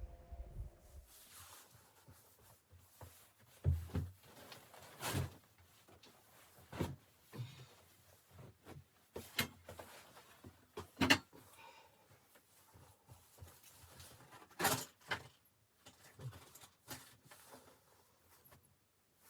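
Irregular knocks, clunks and rustles of camping gear being handled, about a dozen sharp sounds spread unevenly with short pauses between them.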